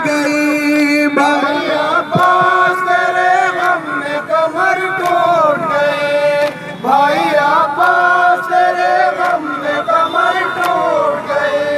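Men chanting a noha, a Shia Muharram lament, in long held notes that slide from one pitch to the next, with sharp slaps of chest-beating matam scattered through.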